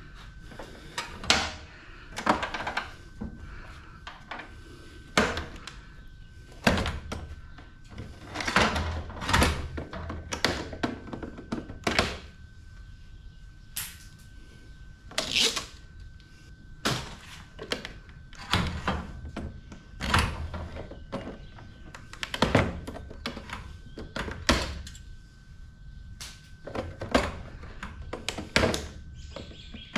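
Irregular knocks, clanks and clatter of hand tools and loose parts as a scrapped appliance is taken apart by hand, some hits ringing briefly. A faint steady high tone runs underneath.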